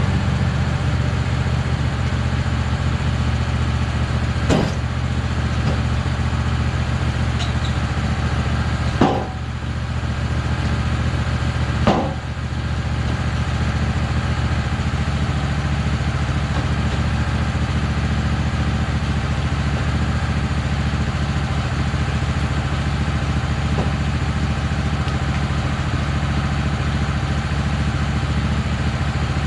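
An engine running steadily at an even idle, with three sharp knocks in the first half, a few seconds apart.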